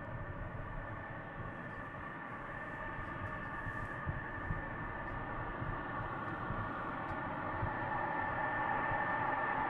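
Twin Pratt & Whitney F119 turbofans of an F-22 Raptor at taxi power: a steady high whine over a low rumble, growing louder over the last few seconds as the jet rolls closer.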